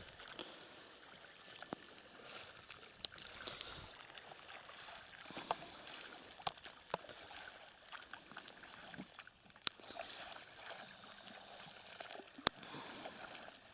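Faint splashing of the oars of an inflatable rowboat dipping and pulling through the water, with a few sharp clicks scattered through.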